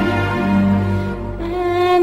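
Slow, sad-sounding music with long held notes, a new note entering about a second and a half in.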